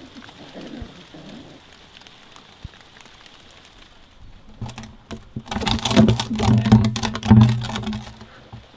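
Rain falling, faint at first, then from about four and a half seconds in a loud stretch of dense crackling over a deep rumble that dies away near the end.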